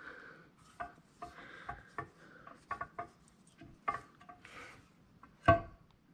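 Steel gear cluster of an NP435 four-speed transmission clinking and knocking against the cast-iron case as the countershaft is worked loose by hand. A string of light metal clinks, with one louder clank about five and a half seconds in.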